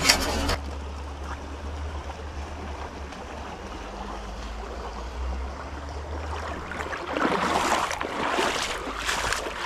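Small creek running steadily, with a low rumble underneath. About seven seconds in, a louder stretch of scratchy, rustling noise comes over it.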